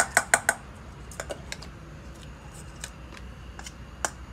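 A metal spoon tapping and clinking against a stainless steel bowl: a quick run of four or five sharp clinks at the start, then single light clicks every second or so.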